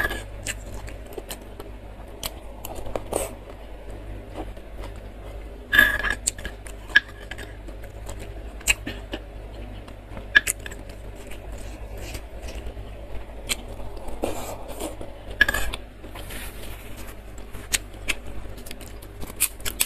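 Metal spoon clinking and scraping against a stone mortar bowl (cobek) as fried tofu is scooped up, in many short sharp clicks, over the steady low hum of an electric fan.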